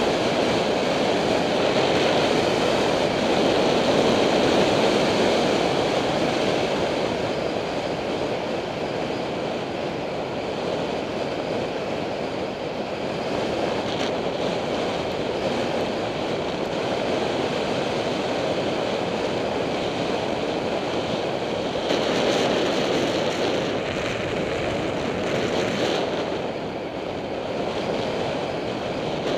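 Wind rushing over a bicycle helmet camera's microphone while riding, a steady hiss that swells and eases a little.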